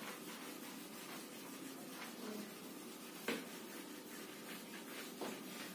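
Duster wiping marker off a whiteboard: faint rubbing in separate strokes, one stroke sharper than the rest a little past three seconds in.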